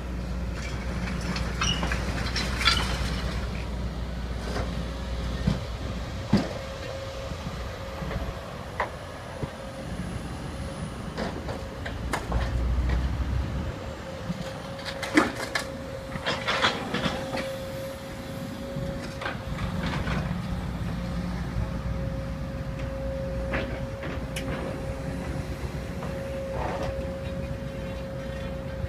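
Building demolition: heavy machinery running with a low rumble and a steady hum, broken by repeated sharp knocks and crunches of breaking debris.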